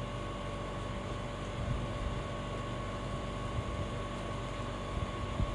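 Steady room hum of background machine noise with a faint constant whine, no speech.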